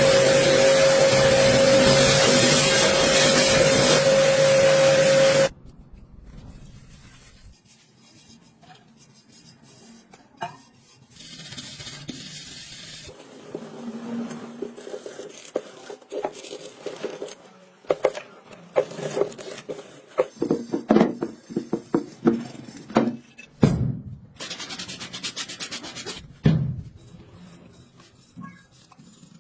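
A pressure washer sprays with a loud, steady hiss and a humming tone, then cuts off suddenly about five seconds in. After that come quieter, irregular rubbing and scrubbing sounds with scattered knocks.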